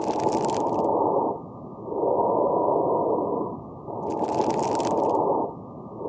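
Stethoscope recording of lung sounds with fine crackles: muffled breathing that swells and fades about every two seconds, with brief high-pitched popping crackles late in inspiration. The crackles are the sign of collapsed small airways and alveoli snapping open, as in congestive heart failure, atelectasis, pneumonia or pulmonary fibrosis.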